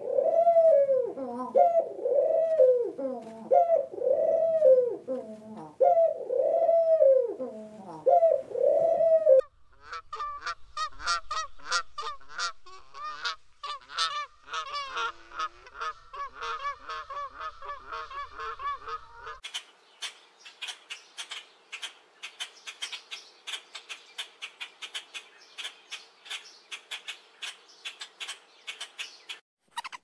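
A dove cooing, a run of about nine arched coos, each rising then falling, roughly one a second, for the first third. This is followed by black-necked swans' quieter, higher-pitched calls with soft clicks. A fast series of short, clicking chirps fills the last third.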